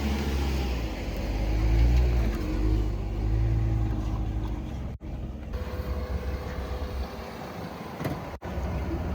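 Jeep engine pulling under load as it crawls over a trail obstacle, swelling about two seconds in and then settling back. The sound drops out abruptly twice for an instant, about halfway and near the end.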